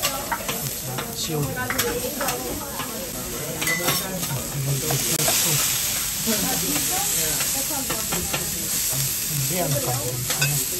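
Kobe beef sizzling on a hot teppanyaki griddle, a steady hiss with scattered sharp clicks.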